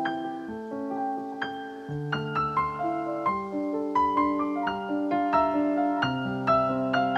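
Background piano music: struck notes and held chords in a slow melody.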